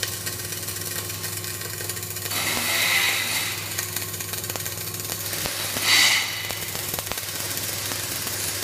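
Flux-cored arc welding arc crackling steadily, a dense run of fine crackles over a steady low hum. It swells louder twice, about two and a half and six seconds in.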